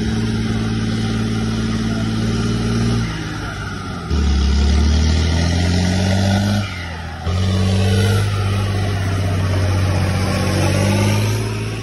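Fendt 614 LSA Turbomatik tractor's turbo diesel engine running hard under full load while pulling a sled, a deep steady drone. About four seconds in the note drops lower and gets louder, it cuts out briefly near the middle, and a higher rising whine sits over it for a few seconds.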